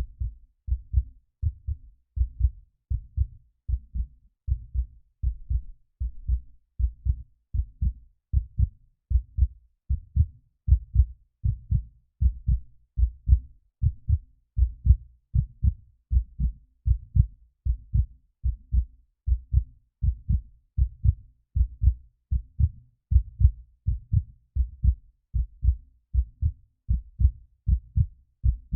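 Human heartbeat, a steady lub-dub double thump repeating at about one beat a second, low and dull.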